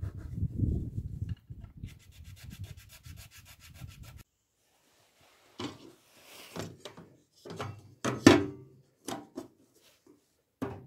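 A hand file rubbing back and forth on the edge of a blue 3D-printed plastic throat plate. It stops abruptly about four seconds in and gives way to a run of separate knocks and clatters as the plastic plate is set into the table saw's metal throat opening, the loudest about eight seconds in.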